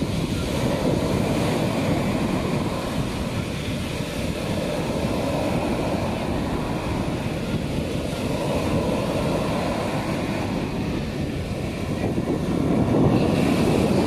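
Rough sea surf under a storm warning: waves breaking and washing up the sand in foam, in steady swells, with wind buffeting the microphone. A louder wave breaks near the end.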